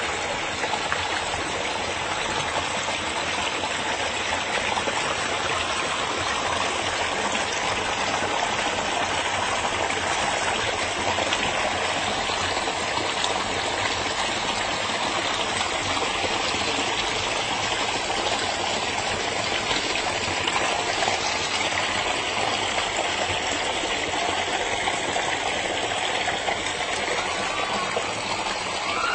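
Forest stream running steadily over rocks: a constant rush and babble of water.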